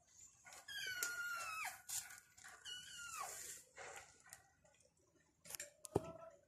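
Kitten meowing twice, two high calls that each fall in pitch, among scattered light clicks, with a sharp knock near the end.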